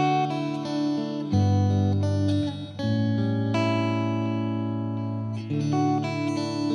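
Background music led by guitar, playing held chords that change every second or two.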